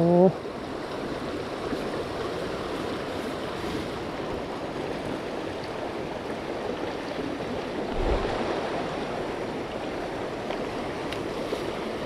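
Mountain river water rushing steadily over rocks, an even noise of flowing current, with a brief low rumble and slight swell in level about eight seconds in.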